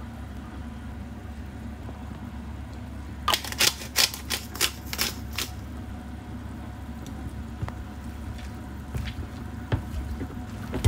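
Metal utensils clinking against a glass mixing bowl. A quick run of sharp taps comes about three seconds in, then softer scattered taps follow as boiled eggs are mashed with a metal potato masher.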